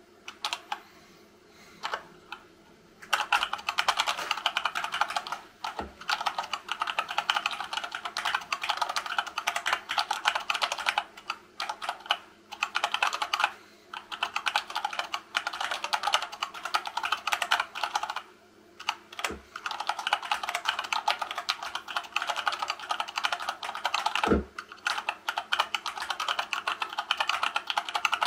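Fast touch-typing on a hand-wired Dactyl Manuform split keyboard with silicone-lubed Gateron Brown tactile switches in a 3D-printed wood-filament case. A few isolated key presses come first, then a dense run of keystroke clacks from about three seconds in, with a few short pauses and an occasional deeper thud.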